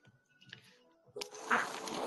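Faint background music, then a bit past a second in a loud rustling scrape as the filming phone is handled and shifted on the shaggy rug.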